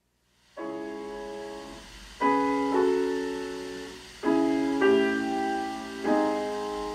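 Piano music played back from CD through a 6BM8 (6F3P) ultralinear single-ended valve amplifier and bare Isophon oval loudspeakers. It begins about half a second in, with slow held chords, a new one struck every second or two and each dying away.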